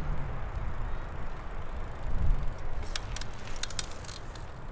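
Jet engines of a twin-engine airliner climbing away after takeoff: a steady spread of jet noise with uneven low rumble. A few faint sharp clicks come about three to four seconds in.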